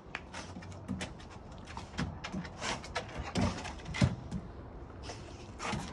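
Yellow Labrador sniffing and snuffling at a small object in short, repeated bursts, mixed with light clicks and taps.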